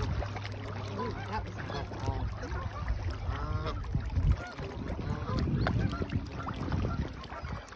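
Canada geese honking, many short calls overlapping one another, over a low steady rumble.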